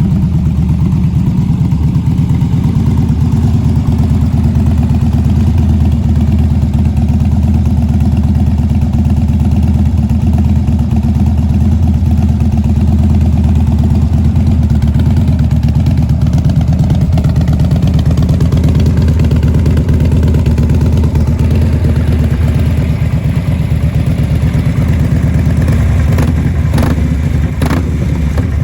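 2012 Harley-Davidson Dyna Street Bob's V-twin engine running steadily at a low, even speed with a deep pulsing exhaust. A few sharp clicks come near the end.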